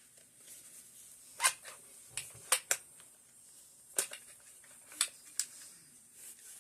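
Sharp metallic clicks and clacks of AK-47 rifle parts being handled and fitted together during reassembly, about seven in all, the loudest about a second and a half in.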